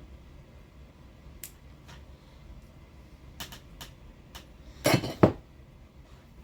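Small hard RC differential parts being handled on a workbench: a few light clicks, then a louder clatter of two knocks about five seconds in.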